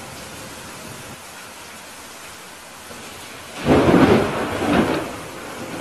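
Steady rain hiss, then a loud clap of thunder about three and a half seconds in, rumbling with a second swell a moment later before dying away.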